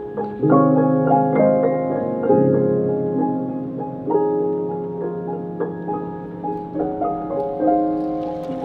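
Background piano music: chords and single notes struck every second or two and left to ring out over held low notes, the loudest chord about half a second in.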